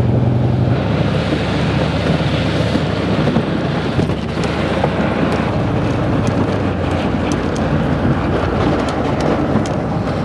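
Loud, steady vehicle rumble and rushing noise from a jet ski being towed across pavement by a pickup truck, with scattered small clicks and knocks from about four seconds in.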